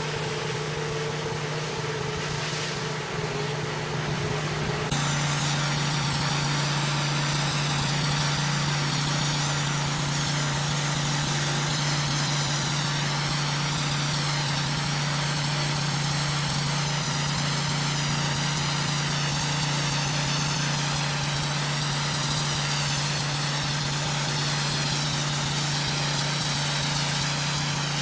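Pressure washer's engine running steadily under load, with the hiss of water spraying on concrete. About five seconds in the sound steps up a little louder and the spray hiss changes.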